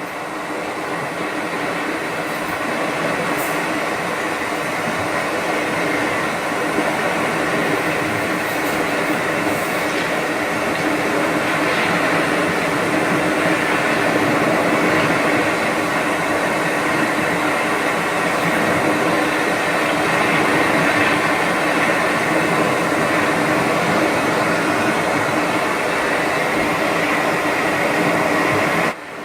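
Steady mechanical droning hum with an even rushing noise and several steady tones under it, much like the rumble inside a moving train car. It swells slightly over the first few seconds and drops abruptly near the end.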